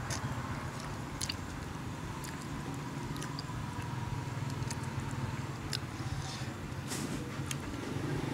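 A person chewing food, with scattered small clicks and crunches from the mouth, over a steady low hum.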